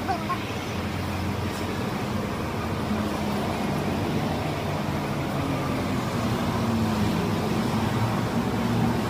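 Steady low mechanical drone of a running engine, its pitch shifting slightly in the second half.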